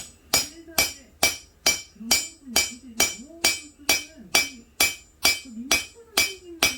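Blacksmith's hammer striking steel on an anvil in a steady rhythm, a little over two blows a second, each blow ringing briefly.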